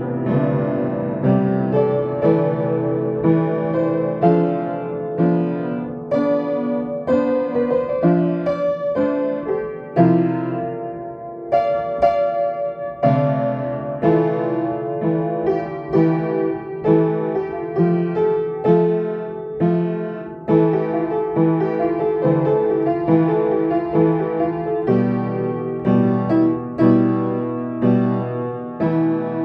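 Solo piano playing calm music: a melody over steady low notes and chords, with new notes struck about twice a second.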